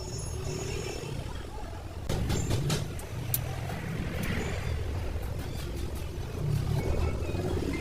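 A heavy vehicle's engine running with a steady low rumble, with a few sharp metallic clicks a couple of seconds in.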